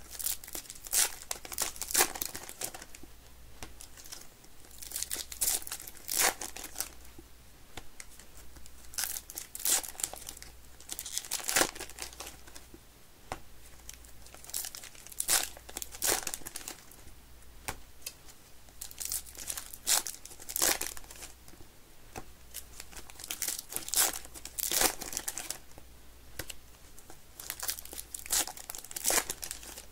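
Foil wrappers of 2022 Topps Fire trading card packs being torn open and crinkled by hand. Bursts of sharp crackling and rustling come every second or two as pack after pack is opened.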